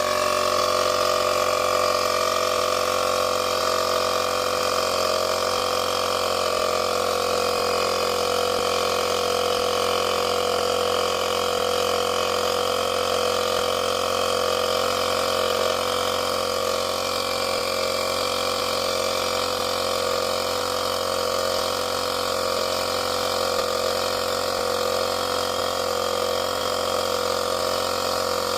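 Tesla portable tire inflator running steadily, a constant mechanical hum with a fixed pitch, as it pumps up an underinflated rear tire.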